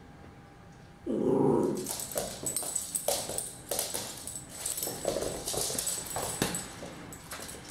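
A small terrier-type dog lets out one loud, short vocal sound about a second in, then pounces and scrambles after a cherry tomato, its claws clicking and skittering on a laminate floor, with a few more short vocal sounds in between.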